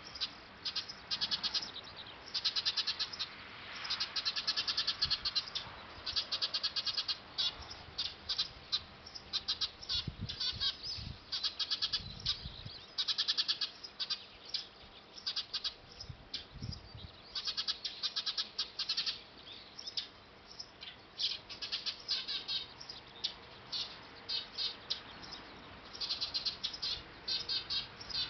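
Eurasian tree sparrows chirping at their nest: fast runs of short high chirps in clusters, with only brief gaps between them. A few low bumps come near the middle.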